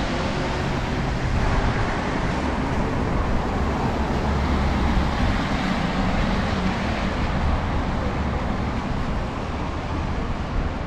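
City street traffic, cars driving on wet road: a steady hiss of tyres with a low rumble.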